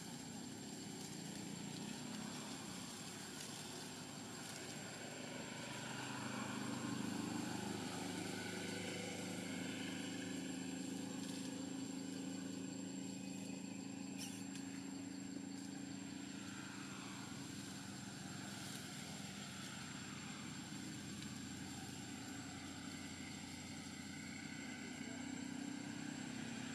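A steady low engine drone, a little louder about seven seconds in, with a thin high steady tone above it.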